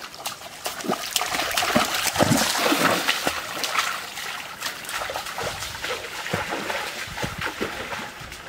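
Splashing footsteps of a person wading through a shallow, rocky stream, each step kicking up water, over the trickle of the stream running among the stones. The splashing comes thick and fast, loudest about two to three seconds in, then eases a little.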